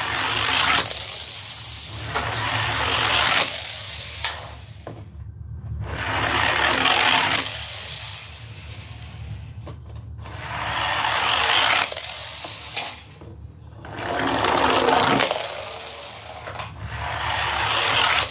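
Toy cars rolling and rattling in a run of rumbles, each swelling up and dying away over two or three seconds, about six times. Sharp clicks come between the rumbles as the cars strike.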